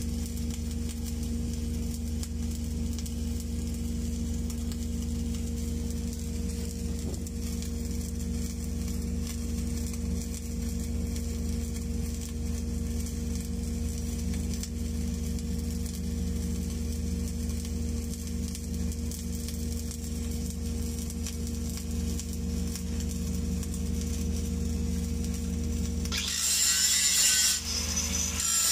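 Mechanized orbital pipe-welding carriage arc-welding a pipeline joint: a steady low hum with a constant crackle of the welding arc. About 26 seconds in, the hum drops out and a louder, harsher hissing rattle takes over.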